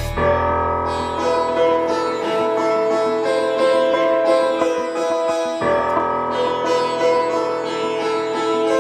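Instrumental background music: a slow melody of long held notes, shifting to new notes about a quarter of a second in and again near six seconds in.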